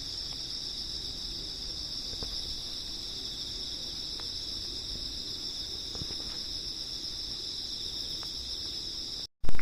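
Steady high-pitched insect chirring, like crickets, with a few faint clicks. Near the end it cuts out for a moment, followed by a brief loud burst.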